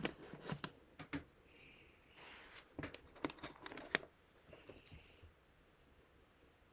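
Faint clicks and taps of makeup packaging and a brush being handled, about a dozen of them in the first four seconds, with a few soft rustles between.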